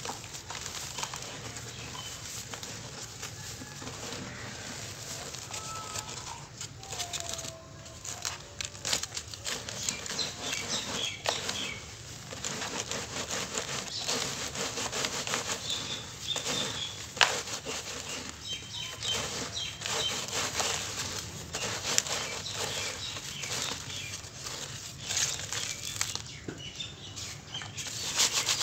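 Hands crumbling and rubbing dry cement lumps and powder against a wire-mesh sieve in a plastic basket: a continuous gritty crunching and sifting patter, dotted with sharp little crackles as the lumps break.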